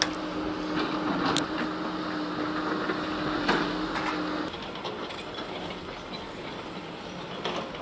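A machine's engine running steadily at a constant pitch, with a few sharp knocks and clatter of debris. About halfway through the engine sound stops, leaving quieter outdoor background noise with scattered knocks.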